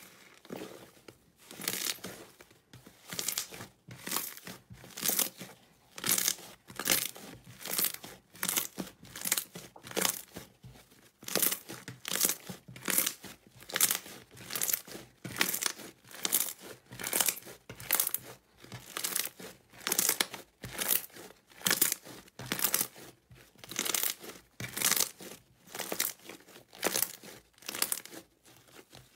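Soft green slime being kneaded and squeezed by hand, a crackling, tearing squelch each time it is pressed and folded, in a steady rhythm of about one louder stroke a second.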